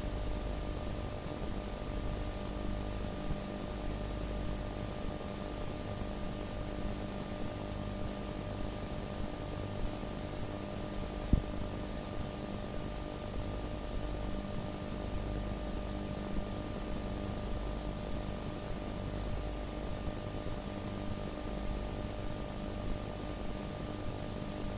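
Steady hiss and low electrical hum with a few faint steady tones, the noise of a blank stretch of analogue video recording with no programme sound. There is a single short click about eleven seconds in.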